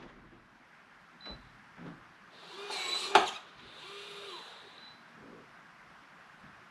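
Electronic keypad door lock working: a couple of soft clicks and a high beep, then its small motor whirs briefly and ends in a sharp click as the latch moves, followed by a longer beep.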